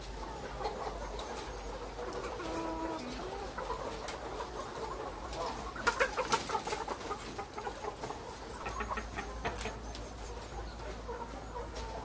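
A flock of caged brown laying hens clucking and calling, with several overlapping voices and a few drawn-out calls at a steady pitch. About halfway through there is a brief flurry of sharper, louder clicks and calls.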